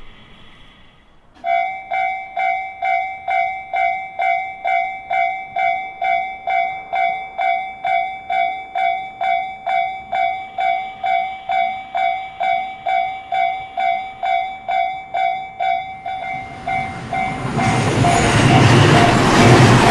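Japanese level crossing warning bell starts ringing about a second and a half in, striking about twice a second. Near the end a train approaches and passes, its rising rail noise drowning out the bell.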